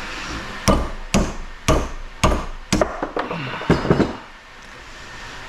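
Hammer blows on a metal industrial sprinkler head being knocked apart to free its brass: about seven sharp strikes, roughly two a second, stopping about four seconds in.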